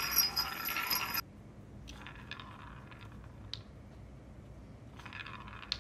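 Wooden balls rolling and clattering around the track of a bamboo ball-tower cat toy, with the small bell among them jingling, loudest for about the first second. After that come fainter rattles and a light tap as a cat paws at the toy.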